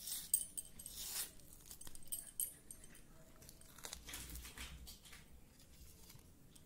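Soft wet crackling and tearing as fingers pull a pomelo segment's membrane apart and loosen the juicy pulp vesicles. It is busiest in the first two and a half seconds, then fainter.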